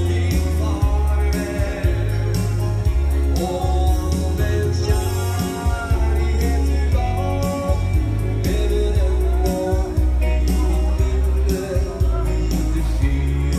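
Live dance-band music: a man singing into a microphone over electric guitar, keyboard, deep bass notes and a steady beat.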